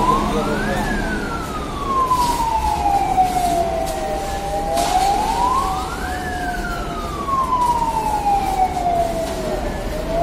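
Fire engine siren wailing in slow cycles, each a quick rise and a long fall, repeating about every five and a half seconds. A second, lower siren tone glides slowly beneath it, over the low rumble of crowd and street noise.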